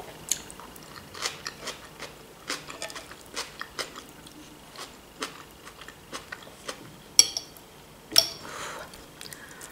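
Close-up chewing and biting of crunchy raw vegetable salad and omelette, with many small wet mouth clicks and crunches. A metal fork clinks on the plate a few times, sharpest twice near the end.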